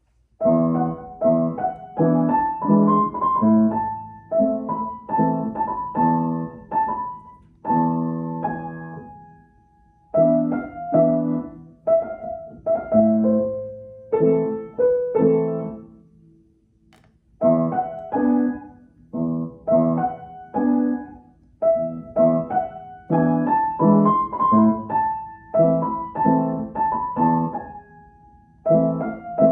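Upright piano being played, a melody over chords, starting about half a second in. The playing comes in phrases, with a brief break about ten seconds in and a longer one around sixteen seconds.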